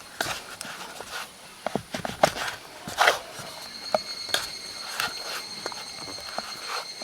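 Irregular light knocks and scuffs, like footsteps or handling of camp gear. About halfway through, a steady high-pitched tone comes in and holds.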